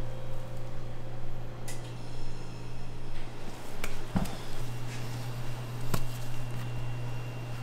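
A stainless steel pot of soft bread dough is tipped onto a worktable and scraped out with a plastic scraper: short knocks and scrapes of the pot and scraper, with the dough dropping out. A steady low hum of kitchen equipment runs underneath.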